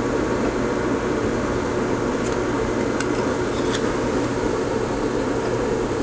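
Steady fan-like whooshing noise with a low hum underneath, running evenly, with a few faint ticks in the middle.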